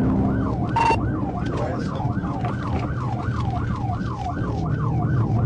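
Police car siren in a fast yelp, its pitch sweeping up and down about three times a second, over the patrol car's engine and road noise.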